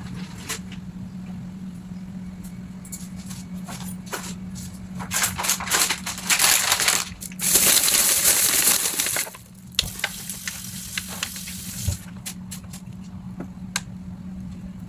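Plastic packaging and bags being handled, rustling and crinkling, with small clicks and knocks; the crinkling is loudest in a stretch in the middle. A steady low hum runs underneath.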